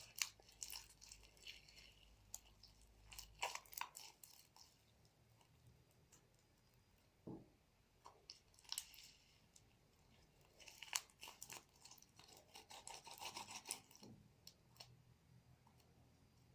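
Faint, scattered sticky clicks and crackles of homemade glitter slime being pulled and squeezed by hand and scooped out of a plastic tub. The slime is a bit stiff from a lot of glitter.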